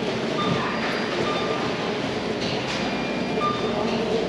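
Busy grocery store background noise, a steady hum and murmur, with a few short electronic beeps at the same pitch scattered through it.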